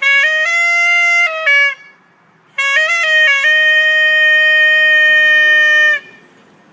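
A short melody played on a reedy, clarinet-like wind tone, in two phrases. The second phrase ends in a long held note that stops about a second before the end.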